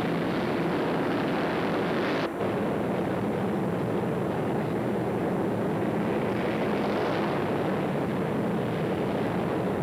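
Several open-class racing motorcycle engines running together in a dense steady drone. There is a brief dropout a little over two seconds in.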